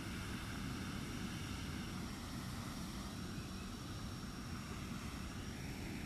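Steady low background rumble, with a faint steady high tone above it.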